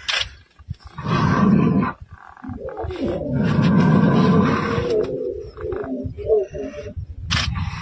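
Lion roaring: two long, deep roars, then a series of shorter grunts.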